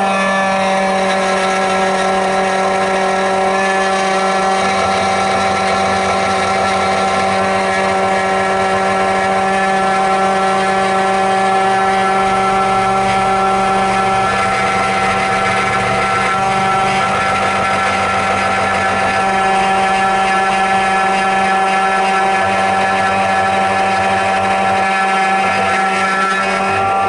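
SEC-E9 electronic key cutting machine running steadily, its cutter spindle motor whining as it mills an HU92 key blade.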